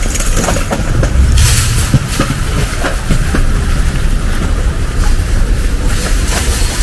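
Loud, steady low rumble of city street noise, with many short clicks and knocks through it.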